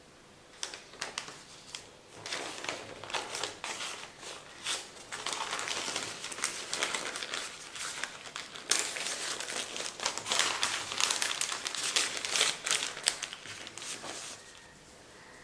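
Newspaper crinkling and rustling in irregular bursts as hands fold and press it around a banana-leaf-wrapped rice parcel; the crackle fades out a second or so before the end.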